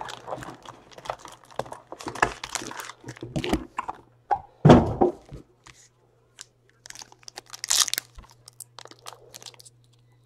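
Cardboard hobby boxes and a foil trading-card pack being handled, with irregular crinkling, rustling and tearing of the packaging. A heavy thump comes about five seconds in.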